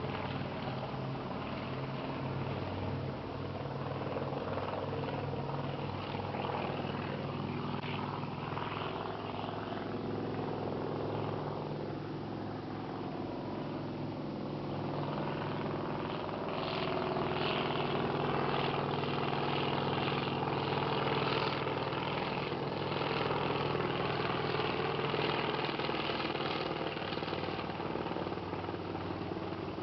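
Helicopter flying by: a steady engine and rotor drone, with the rapid chop of the rotor blades coming in and growing louder in the second half as it draws nearer.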